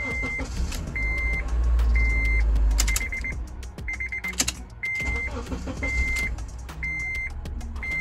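Honda Element's 2.4-litre four-cylinder engine being started with a newly installed ignition switch: the rumble swells about a second in, then settles to a steady run. Over it, the car's warning chime beeps evenly about once a second.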